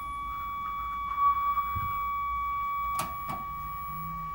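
A steady electronic tone with a couple of higher overtones, and about three seconds in two sharp clicks close together: push-buttons on a B&K Dynascan 1251 NTSC pattern generator being pressed.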